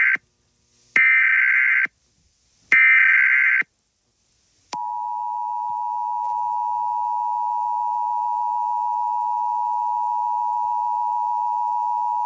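Emergency Alert System tones: the end of one short screeching data burst of the SAME header and two more, each about a second long, then, about five seconds in, the steady two-tone EAS attention signal begins and holds.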